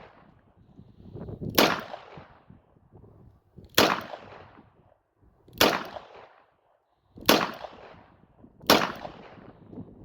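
Smith & Wesson 686 revolver fired five times in steady single shots, roughly one every two seconds, each crack followed by a short fading tail.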